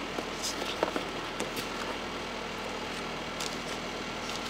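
A few light taps and rustles as the paper merchandise items are handled and set aside. Under them is a steady background hiss with a faint hum.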